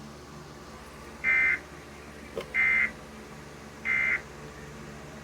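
Emergency Alert System end-of-message signal: three short, loud buzzy bursts of SAME digital data, each about a third of a second long and a little over a second apart, marking the end of the alert. A steady low hum runs underneath.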